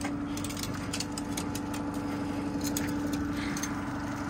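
Boat's outboard motor running steadily at low trolling speed: an even drone with a steady hum. Faint scattered clicks sound over it.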